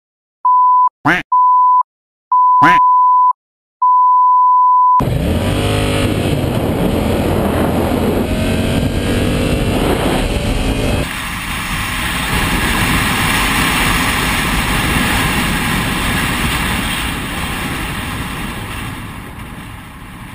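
Several short bursts of a steady censor bleep, broken by sharp clicks. About five seconds in, a sport motorcycle's engine revs as it accelerates, its pitch climbing again and again through the gears. From the middle on it gives way to a steady rush of wind and engine on a helmet camera, fading toward the end.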